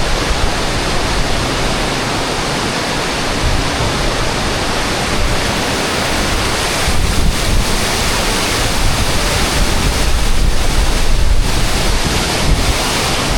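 Waterfall: falling water making a loud, steady rushing noise.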